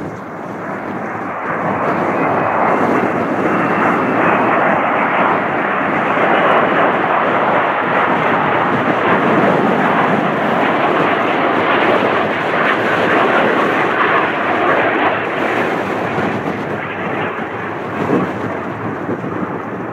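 Airbus A350-900's Rolls-Royce Trent XWB turbofan engines on landing approach: a steady rushing jet noise that swells over the first couple of seconds as the aircraft comes close, stays loud, then eases slightly near the end.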